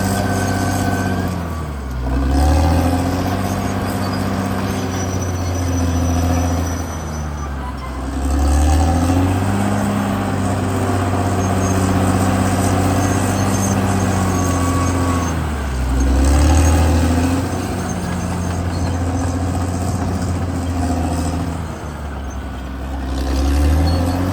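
CAT D6R XL bulldozer's diesel engine running hard. Its pitch dips and climbs back four times, about every six to seven seconds, and it grows louder each time.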